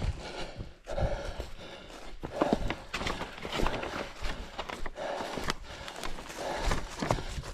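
A runner's footfalls with his breathing close to a head-mounted camera, puffing out about every second and a half.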